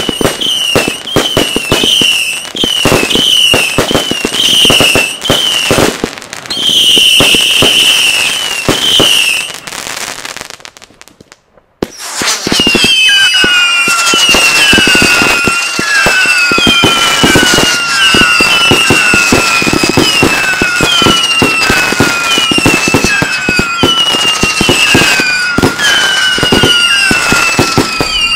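Firework battery firing a rapid string of whistling shots: many overlapping whistles that each slide down in pitch, among sharp pops and crackles. The sound drops out for about a second and a half near the middle, then more whistles follow at two pitches at once.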